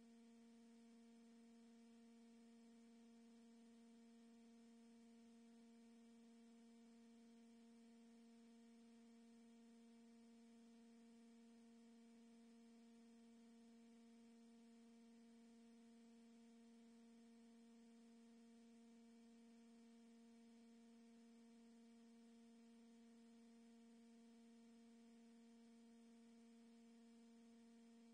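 Near silence with a faint steady hum: one unchanging low tone with a few fainter overtones over a light hiss.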